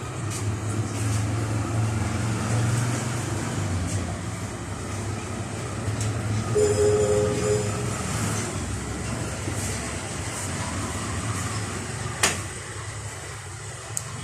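Metal lathe running with a steady hum, a brief pitched squeal about halfway through, and a single sharp click near the end.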